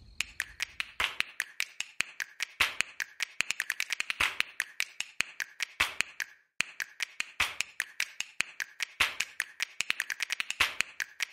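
Rapid, irregular clicking and tapping, several sharp clicks a second, with a short break about six and a half seconds in.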